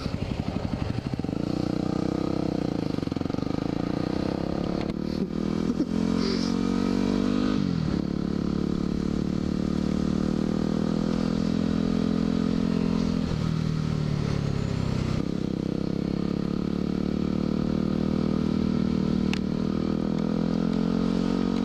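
A 2010 Yamaha WR250R's 250 cc single-cylinder four-stroke engine accelerating away and running through the gears. Its pitch climbs and then drops at each upshift, twice in the first half, then holds fairly steady at cruising speed.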